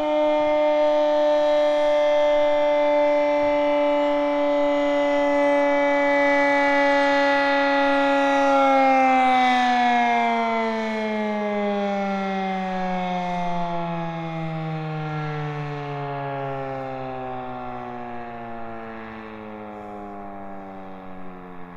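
Sentry Defender outdoor warning siren holding a steady wail, then winding down from about eight seconds in, its pitch falling steadily as it slows. The uploader takes its weak sound for a very sick siren that is about to give out, with a battery near the end of its life.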